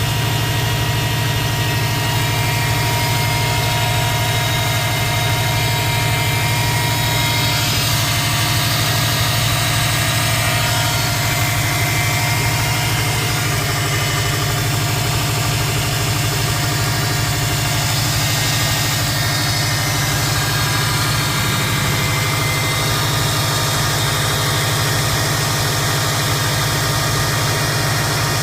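Subaru Impreza WRX's turbocharged flat-four engine idling steadily, with a steady high whine over the engine note. The owner has recently started hearing this whine and doesn't know its cause.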